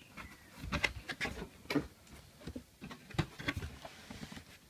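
Cardboard box being opened by hand: irregular taps, scrapes and rustles of the flaps and packaging.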